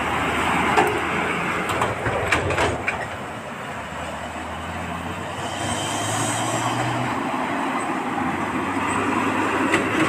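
Diesel dump trucks driving past close by on a rough dirt road: engines running steadily, with a few sharp clanks from the truck bodies about two to three seconds in.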